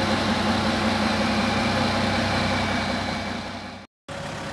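Komatsu HD785 haul truck's diesel engine idling steadily with a low hum. It fades over the last second and cuts off abruptly about four seconds in, and a quieter engine hum resumes just before the end.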